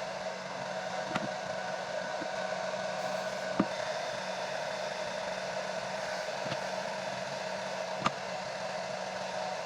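Handheld hair dryer blowing steadily, melting the lace into the hairline, with a few light handling clicks; it is switched off and stops suddenly at the very end.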